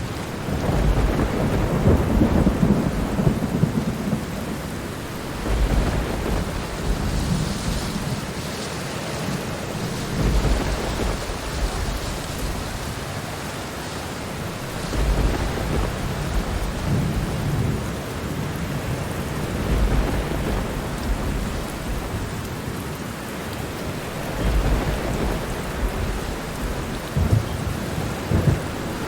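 Steady heavy rain, with low rumbles of thunder swelling and fading every few seconds.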